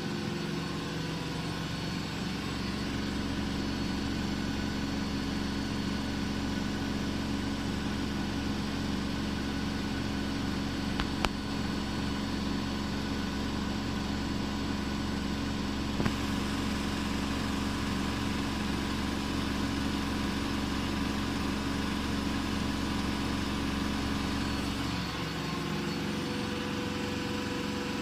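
Miele Novotronic W907 washing machine in its final spin at 1400 rpm: a steady motor hum and whine from the spinning drum. There are two short clicks near the middle. About 25 s in, the deep hum drops away and a higher tone comes in.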